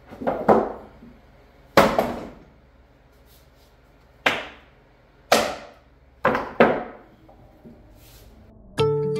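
Cut pieces of reclaimed wood knocked and set down on a wooden bench: about nine sharp wooden knocks at uneven intervals, several coming in quick pairs.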